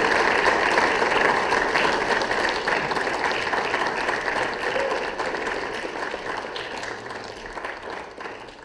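Audience applauding, the clapping growing steadily quieter until it has nearly died away near the end.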